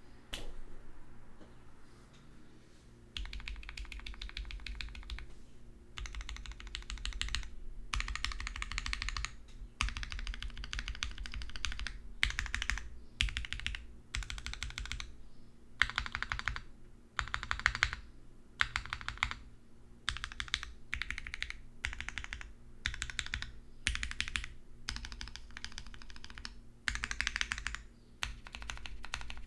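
Typing on a SINGA x TGR Unikorn mechanical keyboard with lubed Gateron Black Ink v2 linear switches, a full aluminum plate and CRP keycaps. Quick runs of keystrokes come in bursts of one to two seconds with short pauses, starting about three seconds in.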